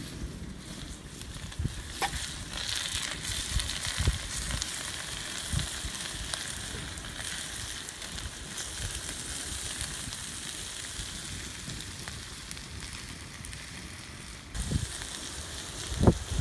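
Vegetables sizzling in a steel pan over an open wood fire while they are stirred by hand. There are a few low thumps, the loudest near the end.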